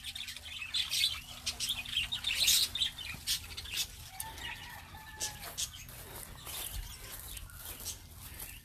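Parakeets chattering in an aviary, a dense run of quick high chirps. About four seconds in, one longer, fainter drawn-out bird call.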